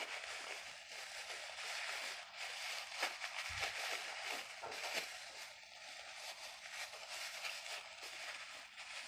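Close crackling and rustling with many small clicks, like soft plastic or tape being handled and pressed by hand.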